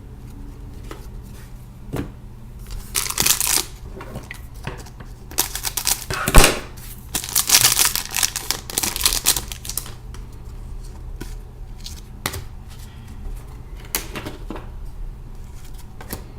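Hockey trading cards being handled and slid against one another, in several bursts of rustling with a few sharp clicks, over a steady low hum.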